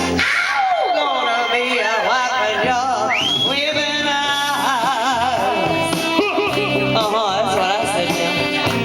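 Live music: a singer holding sustained notes with wide vibrato over accompaniment, leaping briefly to a high note about three seconds in.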